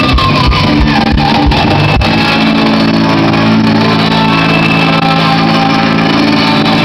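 Live rock band with electric guitars, bass guitar and drums playing loud; the drum beat stops about two seconds in and the band holds a long sustained chord.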